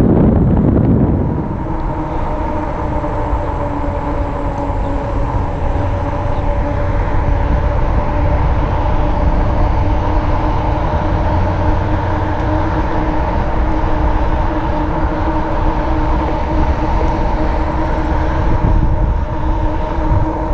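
RadRover fat-tire e-bike rolling steadily along a paved trail: a steady whine from the bike, over wind rumble on the microphone. The wind rumble is heaviest in the first second or so, and eases as the whine sets in.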